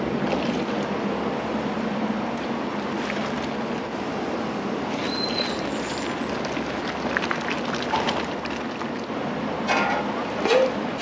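Working restaurant kitchen: a steady rush of noise with scattered clinks and knocks of dishes and utensils, and a couple of brief squeaks.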